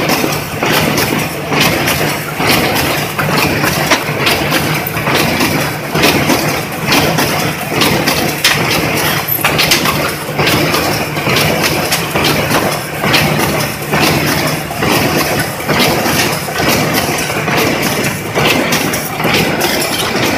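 Corrugated cardboard partition assembly machine running: a loud, steady mechanical hum with frequent clacks, about one or two a second.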